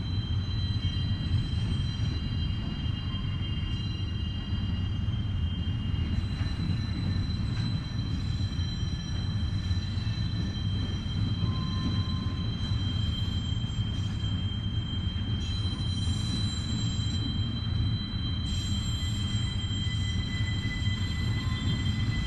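Freight train rolling past: a steady low rumble of the cars on the rails, with high-pitched wheel squeal that holds several steady tones.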